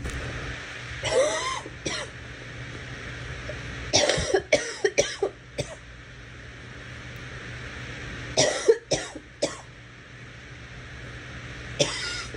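A girl coughing in fits: a couple of coughs about a second in, a run of about six coughs around four seconds in, another run of about four a few seconds later, and one more near the end.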